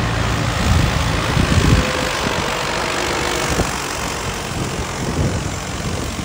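Modified Mahindra Arjun 605 4x4 tractor's turbo diesel engine running as the tractor drives across the field, with a louder surge about a second and a half in.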